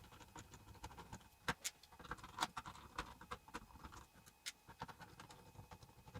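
Faint, irregular small clicks and ticks of a screwdriver backing small screws out of the plastic shell of an airsoft M249 box magazine.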